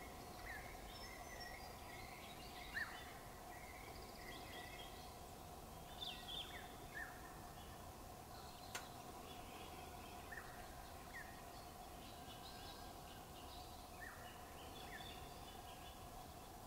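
Faint outdoor ambience of small birds calling: about a dozen short, downward-sliding chirps scattered over a steady low hum, the loudest about three seconds in, with one sharp click near the middle.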